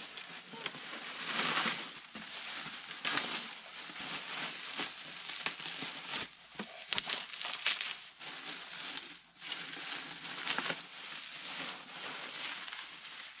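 Bubble wrap and plastic packing rustling and crinkling in irregular bursts as it is pulled off a model airplane fuselage.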